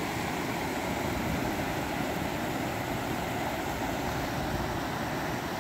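A river running high after rain, pouring over a low concrete weir and churning into white water: a steady, even rush of water.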